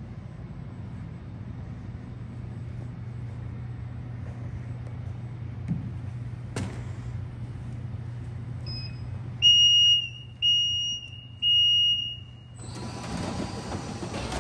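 Automatic bottle-labeling machine (Colamark A117H drum wrap labeler) humming at rest, then its beeper sounds three times, each beep just under a second long and about a second apart, as a start-up warning after Run is pressed. Shortly after, the conveyor and labeling heads start running with a steady mechanical whir and clatter.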